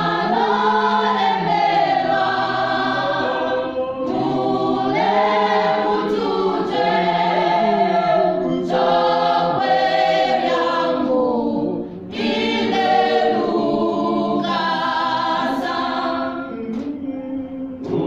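A choir singing a gospel hymn in several voice parts, in phrases of a few seconds with short breaths between them.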